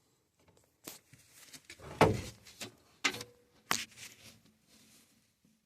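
A series of sharp knocks and clacks, the loudest about two seconds in, from the sheet-metal cabinet and access panel of an HVAC air handler being handled after its control board was checked.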